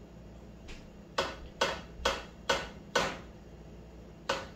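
A metal utensil tapping sharply against cookware: five quick knocks about two a second, then one more after a pause, with a fainter tap before them.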